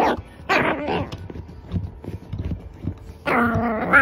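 French bulldog puppy barking and whining in its sleep, as if dreaming: two short muffled barks at the start, then a longer drawn-out call near the end.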